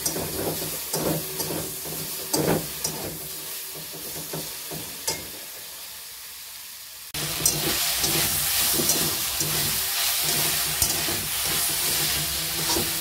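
Bathua greens with brinjal and peas sizzling as they fry in a steel wok, with clicks and scrapes of a spatula stirring them. The sizzle is quieter at first and grows abruptly louder about halfway through.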